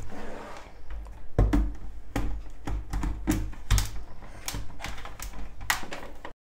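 Irregular clicks and knocks from a countertop blender with a glass jar of frozen banana chunks as it is handled, a few of them heavy thuds. The sound cuts off suddenly near the end.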